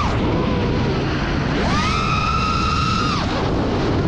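FPV quadcopter's brushless motors whining with the throttle. The pitch drops right at the start, rises sharply about one and a half seconds in, holds high for about a second and a half, then falls again. A steady low rushing noise runs underneath.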